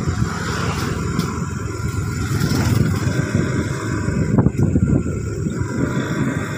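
Motorcycle running at road speed, with its engine and wind buffeting the microphone as it rides along.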